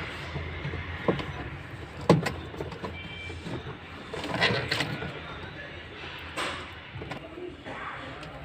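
Knocks, clicks and rustling of parts and tools being handled while a washing machine's spin motor is fitted, with the sharpest knock about two seconds in.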